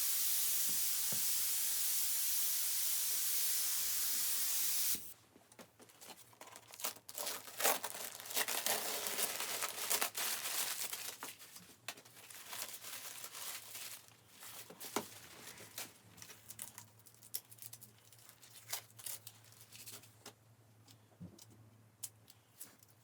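A steady spray hiss that cuts off suddenly about five seconds in, followed by irregular tearing and crinkling with many sharp clicks, loudest for a few seconds after the cut and then fading.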